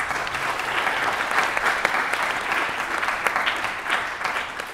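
Audience applause in a hall: many people clapping at once, dying away near the end.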